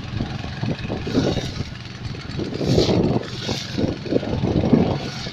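Four-stroke EFI engine running on gas fuel through a converter kit, a rough, pulsing running sound that grows louder for a second or so about halfway through.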